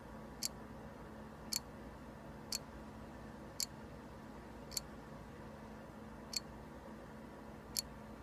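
Mexican jumping beans ticking against a clear plastic box as the moth larvae inside flick the seeds: seven sharp little clicks, about one a second, unevenly spaced.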